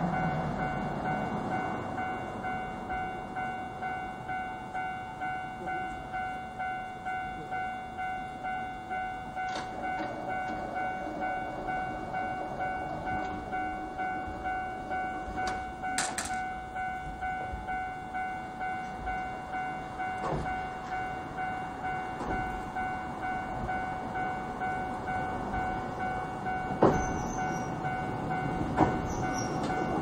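Railroad crossing warning bell ringing in an even, repeating pulse over the clattering of the funicular's moving haul cable, which sounds like road works. A couple of sharp knocks near the end.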